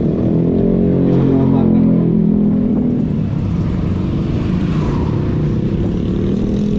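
Road traffic passing close by: a motor vehicle's engine goes past, its pitch rising slightly and then holding for the first two or three seconds, over steady traffic noise.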